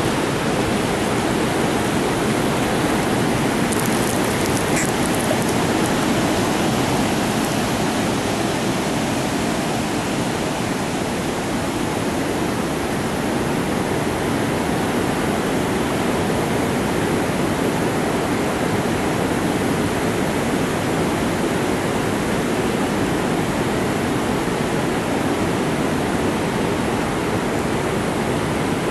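Steady rushing of a fast-flowing creek at a dam.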